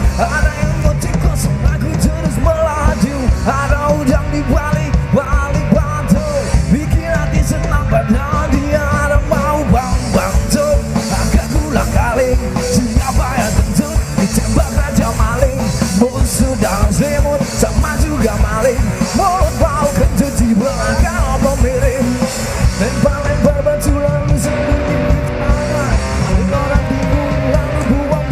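Live punk-rock band playing loudly, with a dense, steady drumbeat under distorted guitars.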